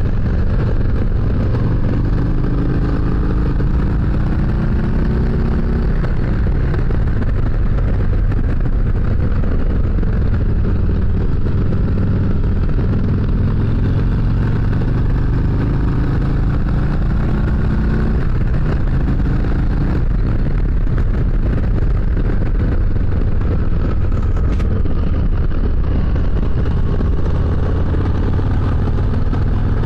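Harley-Davidson Road King's Milwaukee-Eight 114 V-twin engine running under way, its pitch rising several times as it accelerates through the gears.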